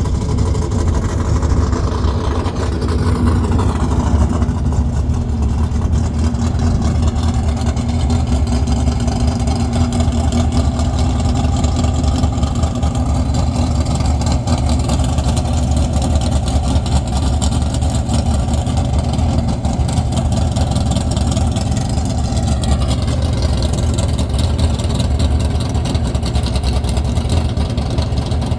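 Vehicle engine running loudly and steadily, with a falling pitch in the first few seconds and again a little over twenty seconds in, as of a vehicle moving away.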